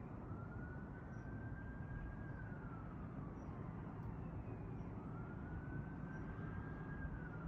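Faint emergency-vehicle siren wailing in the background: a slow rise to a held high note, then a slow fall, twice, over a steady low rumble.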